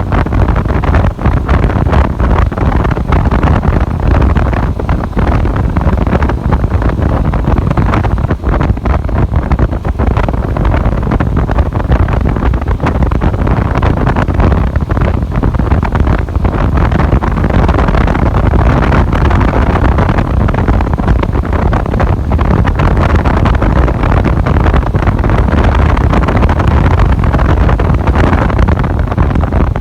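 Wind rushing over the microphone along with a motorcycle's steady running and road noise while riding.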